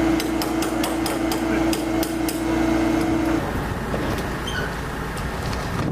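A quick series of sharp metal taps, about five a second for two seconds, over the steady drone of nearby flight-line equipment. The drone cuts off about three and a half seconds in, leaving a rougher clatter and rumble.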